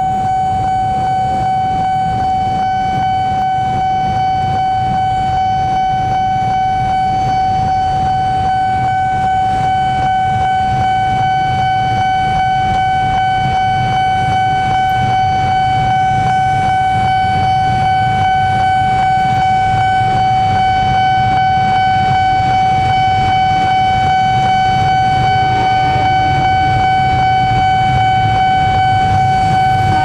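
Level-crossing warning siren sounding one loud, shrill, unbroken tone, warning of an approaching train while the barrier is down. Beneath it is the low rumble of waiting motorcycle and car traffic.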